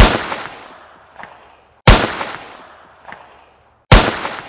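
A gunshot sound effect, three identical blasts about two seconds apart. Each blast fades out over a second or so, with a faint echoing crack about a second after it.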